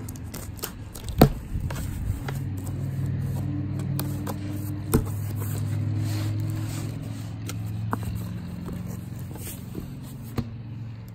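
A folding knife slicing through packing tape on a cardboard box, then the cardboard flaps being pulled open, with sharp clicks and scrapes, the loudest a snap about a second in. Under it runs a steady low engine-like hum.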